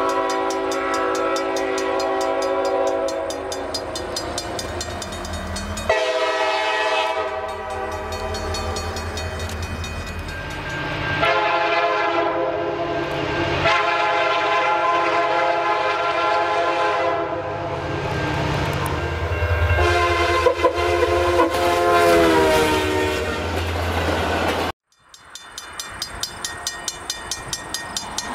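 Diesel freight locomotive air horns sounding a series of long chime-horn blasts, with a low engine rumble underneath and abrupt edits between the blasts. Near the end the horn cuts off suddenly and a regular clicking follows.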